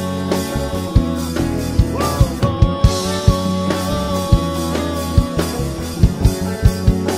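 Live Latin fusion band playing: drum kit and congas keep a steady beat under bass, electric and acoustic guitars and keyboard. A long held note with a slight waver rings over the band from about two seconds in.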